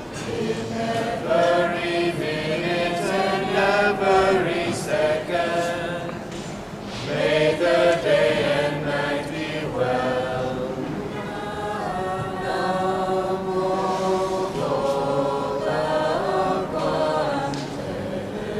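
A group of Buddhist monks and nuns singing a chant together, with men's and women's voices holding long, slow melodic notes in phrases that swell and ease.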